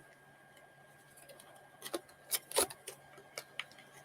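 About half a dozen light clicks and taps of a charging cable and its plastic packaging being handled, coming in the second half after a quiet start.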